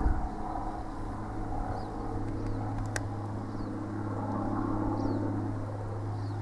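Steady low motor hum, like an engine running at a constant speed, with faint short high chirps now and then and one sharp click about three seconds in.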